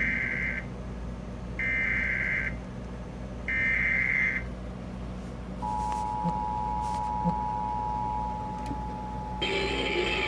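Emergency Alert System broadcast header for a severe thunderstorm warning. Three short bursts of digital data tones about a second apart are followed, about five and a half seconds in, by the steady two-tone attention signal. Other audio starts up under the tone near the end.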